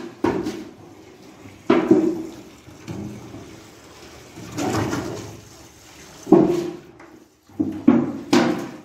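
Metal frame of a dough mixer sweeping back and forth through a trough of very wet, frothy Sangak dough. The dough sloshes and splashes in repeated surges every second or two.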